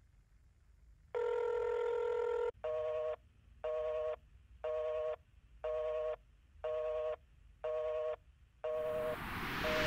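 Telephone tones in a track intro: a steady tone for about a second and a half, then a busy signal beeping about once a second, seven times. Near the end a rising hiss of noise swells in under the beeps.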